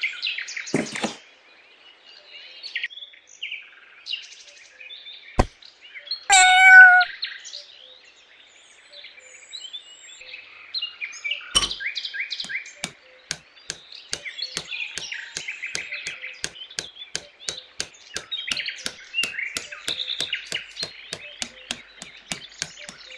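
Small songbirds chirping and twittering, with two sharp knocks and one louder, drawn-out call about six seconds in; from about twelve seconds a quick, even ticking runs under the birdsong.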